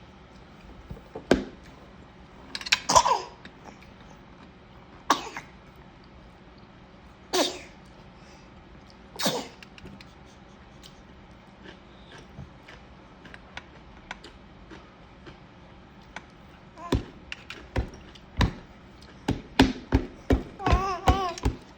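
A person sneezing about five times in the first ten seconds, each a sharp, explosive burst, one with a voiced cry. After a quiet stretch, a quick run of sharp knocks and taps follows in the last few seconds, with a few short squeaky sounds near the end.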